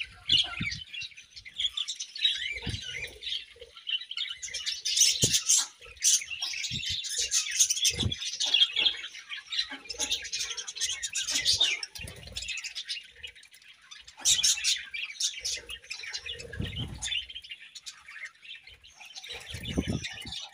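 A flock of budgerigars chattering and chirping without a break, a dense warble of many overlapping high calls, with a few soft low thumps and flutters scattered through it.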